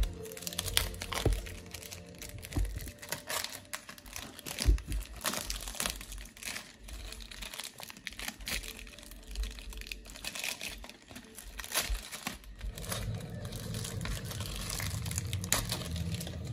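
Plastic shrink-wrap crinkling and tearing as fingers peel it off a CD jewel case, a run of irregular crackles and clicks that thins out after about thirteen seconds.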